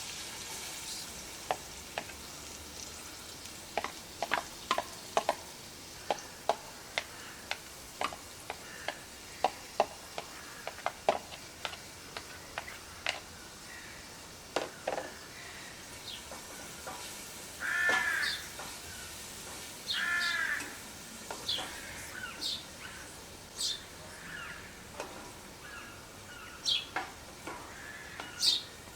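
Onion frying in churned butter with a soft sizzle, and a run of sharp utensil clicks as it is stirred during the first half. A crow caws twice, about 18 and 20 seconds in, with small bird chirps after.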